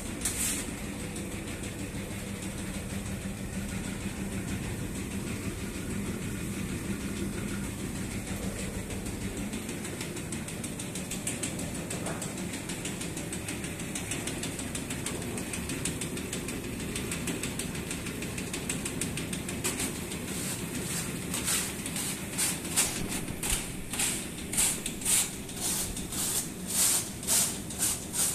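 Motorized sieving machine for granulated palm sugar running with a steady mechanical hum. Its low tone changes about a third of the way in. Near the end come rhythmic shaking hisses, about two a second.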